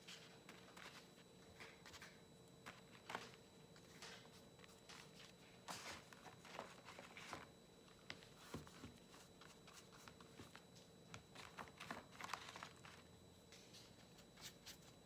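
Faint, irregular scratchy strokes of a paintbrush scrubbing and dabbing paint across paper, in short bursts with pauses, over a faint steady hum.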